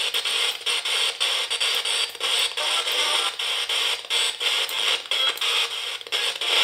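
Homemade spirit box: an FM radio module sweeping continuously down the FM band, giving radio static chopped into short pieces, with brief snatches of broadcast music and voices as it passes over stations.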